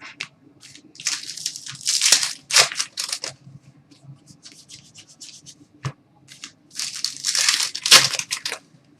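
Trading-card packs and cards being handled: a foil wrapper crinkling and tearing, and cards sliding and rustling against each other, in two spells with one sharp click about six seconds in.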